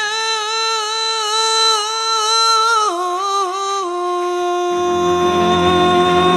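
Alto saxophone playing a slow melody with vibrato: one long held note, then a step down through a few short notes to another held note. Keyboard chords with a bass line come in about three-quarters of the way through.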